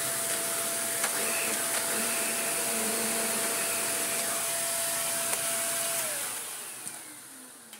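Shark Speed Lift-Away NV680 vacuum cleaner's suction motor running steadily with a whine, then switched off about six seconds in and winding down. It runs with the hose plugged straight into the motor pod and the wand bypassed, which points to the fault lying in the wand.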